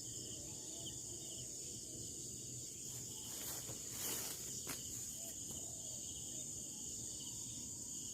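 Steady high-pitched chorus of evening insects, with a few faint rustles and taps about halfway through.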